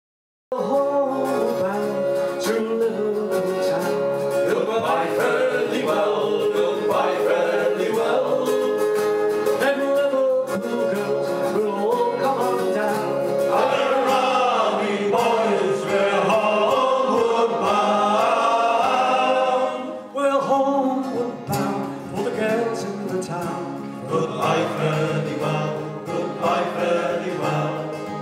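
Sea shanty performed by a men's vocal group with acoustic guitar accompaniment, starting about half a second in after a brief silence.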